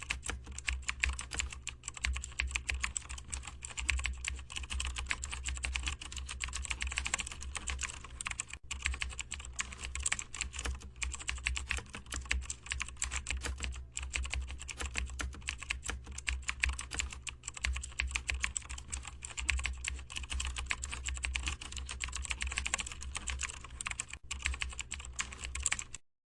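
Fast, continuous typing on a computer keyboard over a steady low hum; it stops abruptly near the end.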